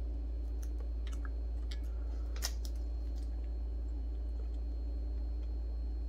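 Fingers picking at and peeling the red plastic liner off 3M double-sided adhesive tape: scattered small crinkles and clicks, the sharpest about two and a half seconds in, over a steady low hum.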